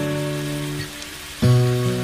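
Background music with held instrumental notes that fade, then new notes struck together about one and a half seconds in, over the fine sizzle of pork liver simmering in its juices in a pan.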